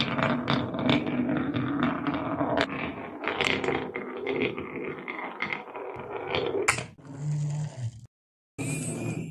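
Marbles rolling and clattering down a toy marble run: a dense run of small clicks and knocks over a steady rattling roll. Near the end the sound turns to a smoother rolling hiss, stops suddenly, and comes back for a moment.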